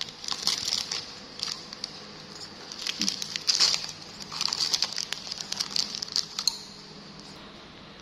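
Light crackling and rustling in several short, irregular spells, with scattered small clicks: close handling noises of packaging, cups or straws.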